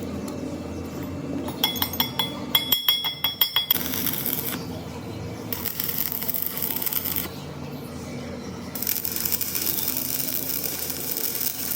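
Small metal parts clinking and tapping against each other in a quick run of about a dozen light, ringing strikes, a second and a half in and lasting about two seconds, over a steady hiss.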